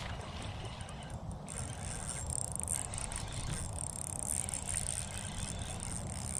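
Wind rumbling steadily on the camera microphone, with a steady high hiss above it.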